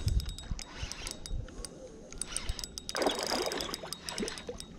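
Spinning reel being cranked in quick turns, its gears ticking, as a hooked largemouth bass is reeled in. About three seconds in, the fish splashes and thrashes at the surface.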